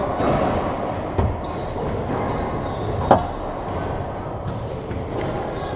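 Racquetball rally in an enclosed court: the rubber ball smacks off racquets and walls with a hollow echo, the sharpest hit about three seconds in, among shuffling footsteps and brief high shoe squeaks on the hardwood floor.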